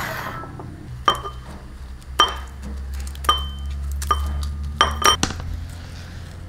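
Kitchen scissors snipping dried red chillies into a ceramic bowl: a sharp clinking click roughly once a second, each with a short ring, quickening to three quick snips near the end. A steady low hum runs underneath.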